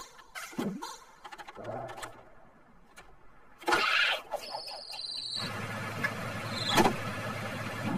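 Cartoon sound effects and squeaky cockroach-character chatter: a falling glide, a loud swish and a brief high double-toned beep. From about five and a half seconds in, a vehicle engine hums steadily, with a brief sharp sound near the end.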